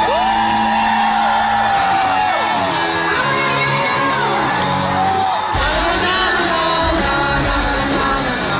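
Live pop music at a concert: a voice sings a held, gliding melody over a steady drum beat that comes in about two seconds in, with heavy bass joining past the halfway point, and shouts and whoops.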